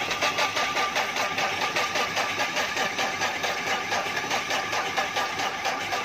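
The Isuzu four-cylinder diesel engine of a Bobcat 853 skid steer loader runs steadily with an even, rhythmic diesel clatter just after starting. This is a hard-starting engine suffering from heavy, thick white exhaust smoke.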